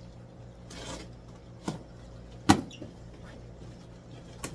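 Handling noises: a brief rustle about a second in, a soft knock, then one sharp knock about halfway through and a small click near the end, over a steady low hum.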